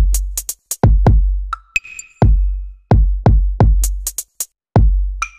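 Electronic drum-machine beat: deep kick drums with long low tails alternate with sharp, high clicking hits, and a short electronic bleep sounds now and then.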